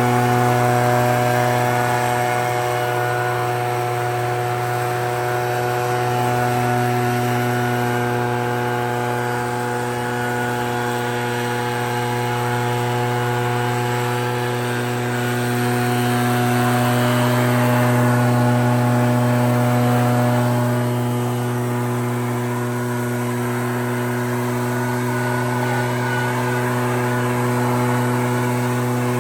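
Echo PB-9010 two-stroke backpack blower running steadily at high throttle, its engine note joined by the rush of air from the blower tube. The sound swells and eases a little as it blows snow.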